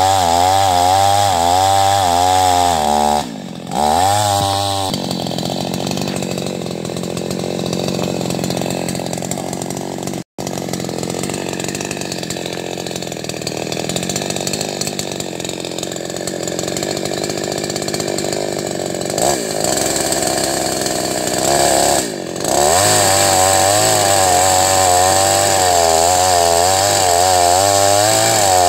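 Two-stroke chainsaw cutting wood, running at high revs with a wavering pitch under load. It drops back to a lower, quieter run for about fifteen seconds in the middle, with a momentary break about ten seconds in, then revs up hard again.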